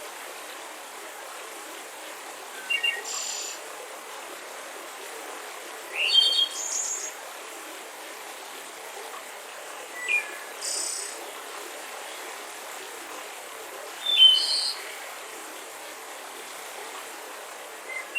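Songbirds chirping in short bursts of high calls and trills about every four seconds, over a steady rush of a mountain river.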